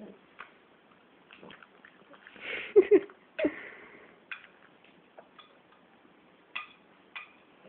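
A pug eating a piece of fruit: scattered short, wet clicks of chewing and lip-smacking, with a louder cluster of sounds from about two and a half to three and a half seconds in.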